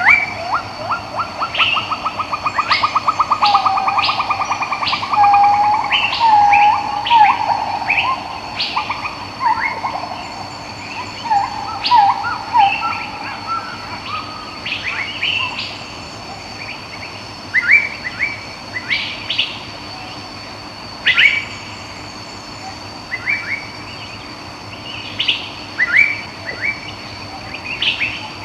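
Several wild birds chirping and singing over one another, with short whistled calls. A fast trill of repeated notes runs through the first several seconds. The calls grow sparser after the middle.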